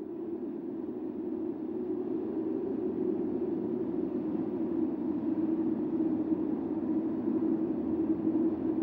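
Blizzard wind blowing in a steady low rush that swells over the first few seconds, with a faint held howl in it.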